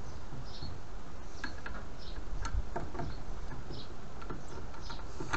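Irregular light clicks and taps as a drill chuck on a small motor's shaft is turned by hand and loosened to release a polished steel rod, over a low steady hum.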